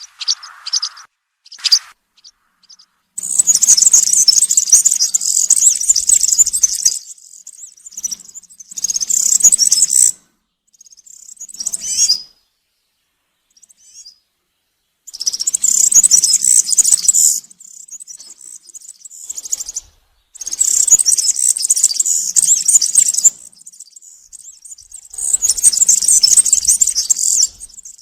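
European serin singing: rapid, high-pitched jingling song in repeated phrases of one to three seconds, with short pauses and quieter twittering between them.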